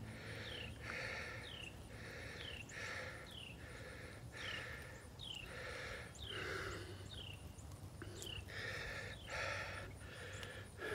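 A man breathing hard and fast while straining with his hands, a puff of breath about every three-quarters of a second.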